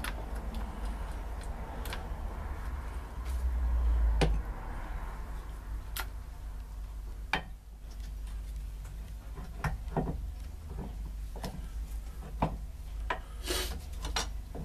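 Triumph Vitesse steering rack being handled and set in a bench vise: scattered metal clinks and knocks, with a brighter rattling clink near the end, over a low steady hum.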